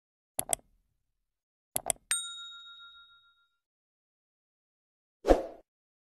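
Subscribe-button animation sound effects: two quick double clicks of a computer mouse, then a notification bell dings once and rings out for about a second and a half. Near the end comes a short, loud whoosh-like burst of noise.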